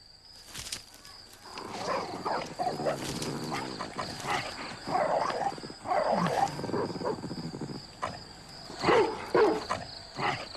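A young street dog growling and snarling as it fights a larger dog for food, in repeated rough bouts that start about a second and a half in and swell loudest around the middle and again near the end.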